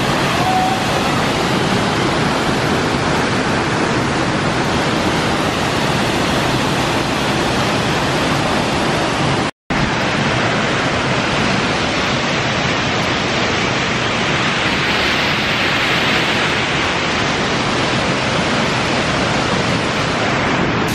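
Very loud, steady rush of a large waterfall close by, a dense even wash of falling water. It cuts out for an instant about ten seconds in.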